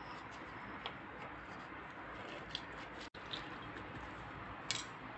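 Half a lemon being pressed and twisted on a plastic hand juicer: faint squishing with a few light clicks.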